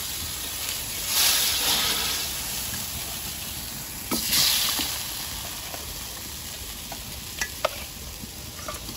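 Turmeric and fish sauce sizzling in a hot frying pan. Louder surges of sizzle come about a second in and again about four seconds in, and a few short clicks of a utensil on the pan come near the end.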